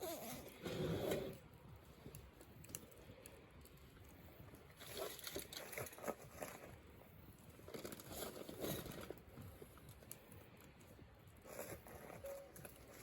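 Burning firewood crackling and popping, with clusters of snaps every few seconds and scattered single pops in between.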